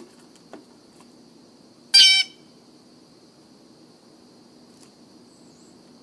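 Blue jay landing on a wooden platform feeder with a soft knock, then giving one short, loud, harsh call about two seconds in.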